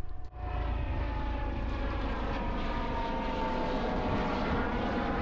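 A steady engine drone that starts a moment in, with a pitch that slowly falls, over a low rumble.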